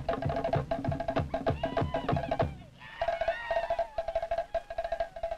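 Cook Islands drum-dance music: a fast, rattling roll on wooden slit drums over a steady low beat on a bass drum at about three to four strokes a second. The low beat stops about two and a half seconds in, and after a brief dip the wooden roll carries on alone.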